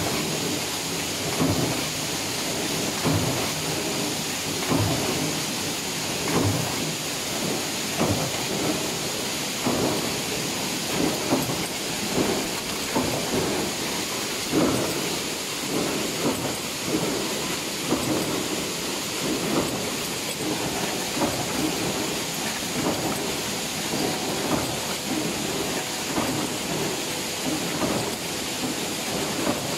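Stamping press running a progressive die that punches iron heads for cabinet hinges. Loud, steady machine noise with a heavier press stroke about every second and a half.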